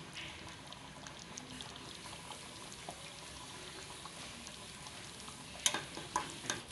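Gravy simmering in a kadai with soft bubbling and popping as fresh cream is stirred in, then a few sharp knocks near the end.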